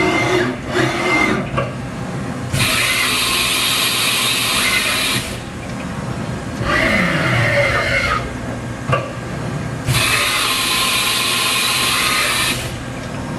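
Haas Mini Mill CNC machine running through moves: motor whine rising and falling in pitch over a steady hum, broken twice by a loud hiss lasting nearly three seconds each.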